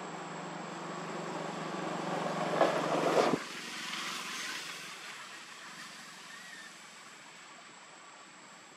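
Engine noise of a passing motor vehicle, a low hum that grows louder and then cuts off abruptly about three seconds in, leaving a faint hiss that fades away.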